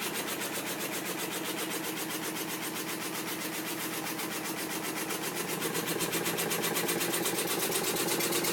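Hitachi DV-1200 running with a fast, even pulsing mechanical noise that grows louder in the second half, which the owner suspects is an abnormal noise.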